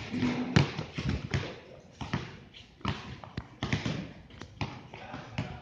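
A basketball bouncing on a hard court: about ten sharp thuds at uneven spacing.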